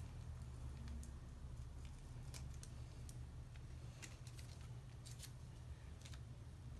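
Scissors snipping open plastic-wrapped photocard packaging: a handful of short, sharp snips spread through the middle, over a low steady hum.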